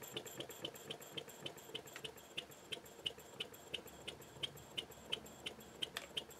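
Inverted wig-wag model steam engine running on compressed air, with a regular ticking beat from each stroke. The beat slows from about five to about three a second as the air is turned down toward its slowest steady run.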